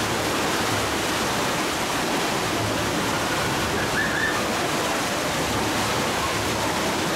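Steady rush of falling water.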